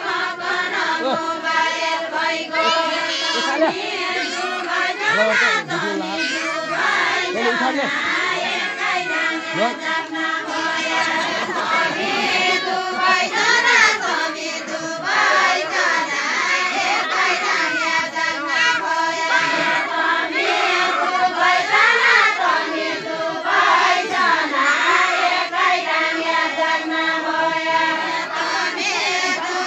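A group of women singing a Nepali Deuda folk song together without instruments, in long drawn-out phrases held on steady notes and repeated one after another.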